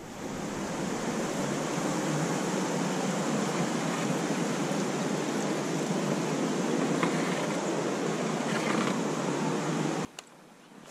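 Steady rushing of moving river water, an even hiss with no rhythm, that cuts off abruptly near the end.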